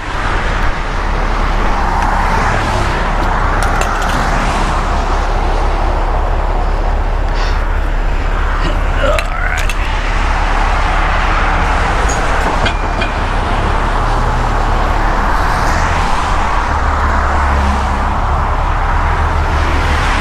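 A heavy diesel truck idling with a steady low drone while interstate traffic passes close by, its tyre and wind noise swelling and fading as vehicles go by.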